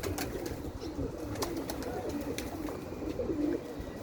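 Several domestic pigeons cooing continuously, their calls overlapping, with scattered light clicks and taps among them.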